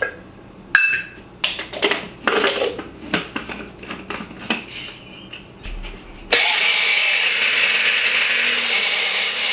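Clicks and rattles of dry grain kernels poured from cup to cup and into a plastic blender cup. About six seconds in, a Magic Bullet blender starts suddenly and runs steadily, grinding the grain berries to a fine powder.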